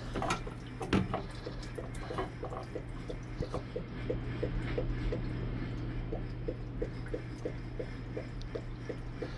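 Antifreeze dripping steadily as it drains out of a marine engine's cooling system, with about three drips a second. A couple of sharp knocks come about a second in.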